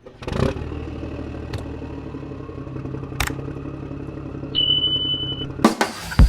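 An engine running steadily, with a few sharp clicks and a short, steady high beep lasting about a second, starting about four and a half seconds in.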